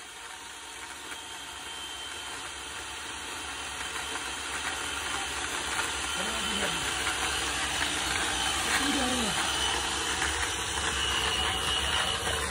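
IBELL EC16-18 1800 W electric chainsaw running and cutting into a tree trunk, a steady mechanical noise that grows gradually louder.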